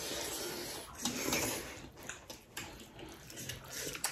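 Quiet eating by hand: wet chewing and the squish of fingers mixing rice and dal on steel plates, with a few small clicks.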